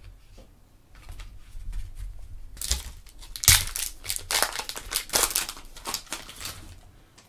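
Foil wrapper of a trading-card pack being torn open and crinkled as the cards are pulled out, with one sharp, loud tear about three and a half seconds in.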